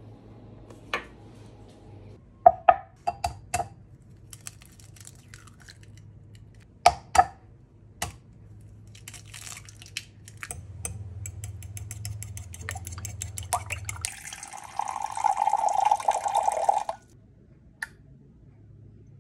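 A few sharp knocks of jars and containers set down on a kitchen counter, then an egg knocked twice on the rim of a ceramic bowl and its shell pulled apart. Near the end, milk poured from a carton into a glass measuring cup for about two seconds, the loudest sound.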